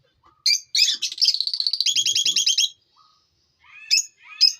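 Small pet parrots chirping: a sharp call, then about two seconds of chattering warble that ends in a fast run of repeated notes, and a few more chirps near the end.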